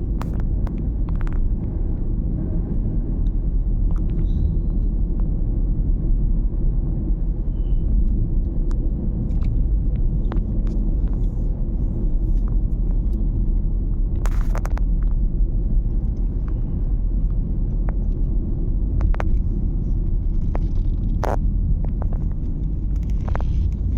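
Car driving at speed: a steady low rumble of road and engine noise heard from inside the cabin, with a few brief clicks.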